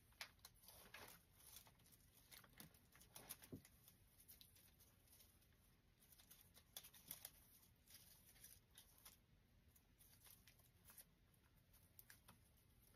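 Near silence with faint, scattered rustles and small clicks of dry twigs and grapevine being handled as the twigs are worked into the wreath.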